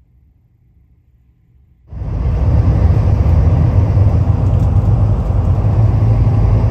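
A faint low hum, then about two seconds in an abrupt change to a ferry under way: its engine runs with a loud, steady low drone over the rush of water.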